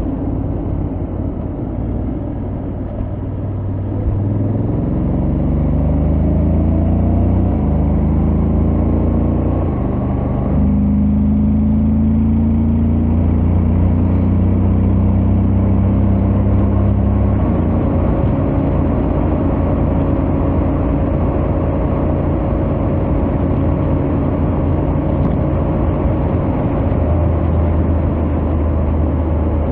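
Honda X-ADV 750's parallel-twin engine and stock exhaust under acceleration: the pitch climbs for several seconds, drops suddenly at an automatic dual-clutch upshift about ten seconds in, then rises a little more and settles to a steady highway cruise.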